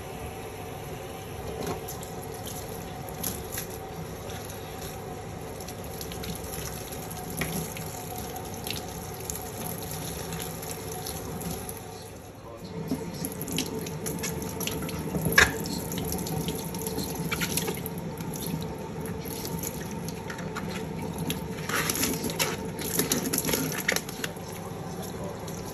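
Kitchen tap running into a sink while food is rinsed by hand, with splashing and light clatter; partway through there is a short break, after which raw chicken pieces are washed in a bowl of water, the running water a little louder and with one sharp knock.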